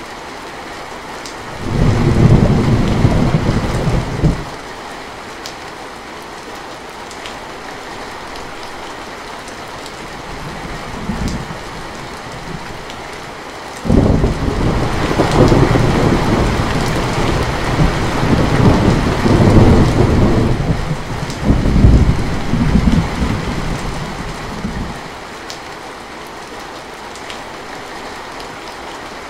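Thunderstorm: steady heavy rain throughout, with a clap of thunder rolling for about two seconds a couple of seconds in and a faint distant rumble later. About halfway through a loud crack sets off a long peal that rolls and swells for about ten seconds before dying away.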